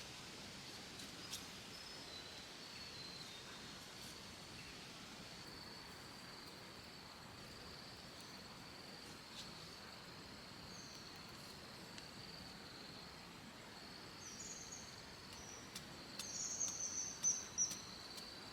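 A steady, high insect drone over a faint background hiss of the woods. Near the end, a bird gives a few high chirps.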